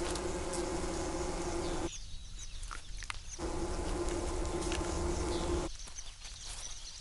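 A swarm of bees buzzing steadily at a wild honey nest. The buzzing drops out twice for about a second and a half, and short high bird calls are heard in the gaps.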